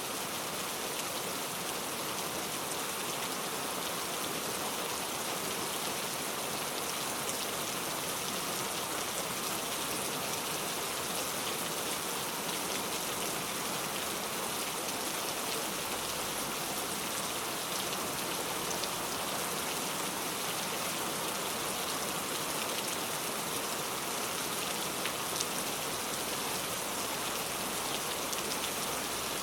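Steady rain falling, an even hiss with fine patter of drops on a surface.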